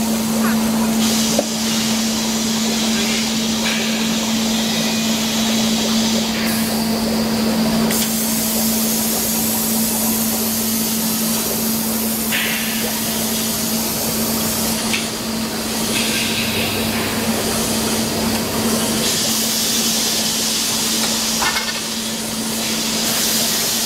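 Paper-pulp moulding production line running: a steady machine hum with hissing air that grows louder and softer every few seconds, and one knock about a second and a half in.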